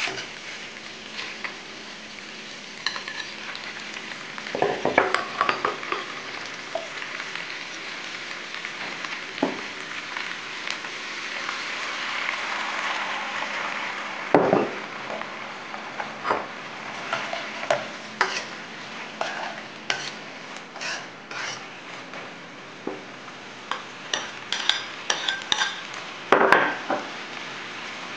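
Shrimp, chicken wings and onion sizzling steadily in an iron wok, with the metal wok ladle scraping and clanking against the pan as the food is stir-fried. The clanks come in clusters and grow more frequent in the second half.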